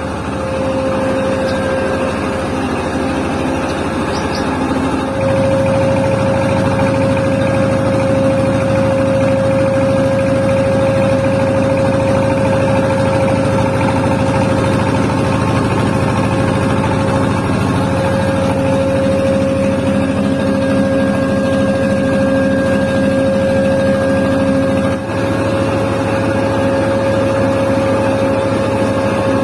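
Engine-driven tapioca flour mill running steadily: a constant low drone with a steady whine over it, louder from about five seconds in and briefly dipping near twenty-five seconds.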